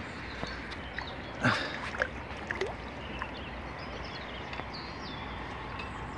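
Steady rush of river water, with a few short splashes as a hooked asp is drawn on its side through the shallows to the bank; the loudest splash comes about a second and a half in.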